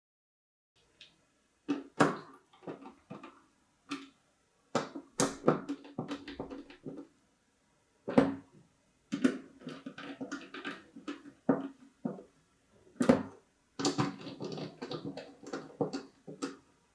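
Irregular clicks, taps and short rattles of hard plastic and metal computer parts being handled, as 120 mm case fans are fitted to a 360 mm AIO cooler radiator.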